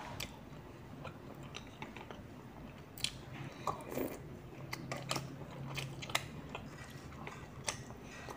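A child eating chicken noodles close to the microphone: chewing and slurping, with scattered sharp, wet mouth clicks.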